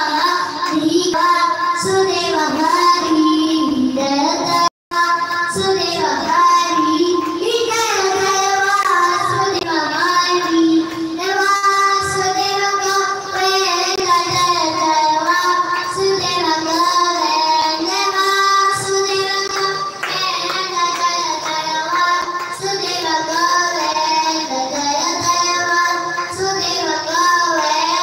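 A boy singing a devotional hymn into a microphone, one melodic voice carrying on without pause. The sound drops out for a moment about five seconds in.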